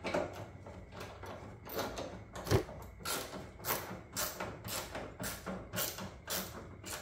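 Socket ratchet on an extension being worked back and forth to tighten a headlight bracket bolt, a short burst of clicks on each back-swing, about two to three strokes a second in the second half. One louder knock about two and a half seconds in.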